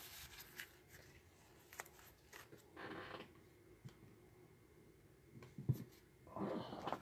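Faint scraping and clicking of rigid plastic toploader card holders being shifted in the hand, with one sharp click near the end.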